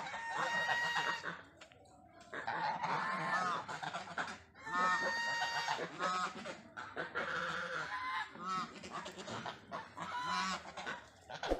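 Domestic geese honking and gabbling in several bouts of a second or two, with short pauses between.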